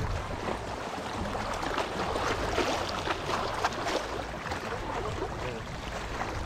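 Water lapping, with many small quick splashes over a steady wash of water noise.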